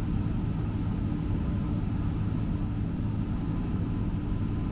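Steady low rumble inside the cabin of a Boeing 767-300 on the ground, its engines at idle while it waits its turn for departure.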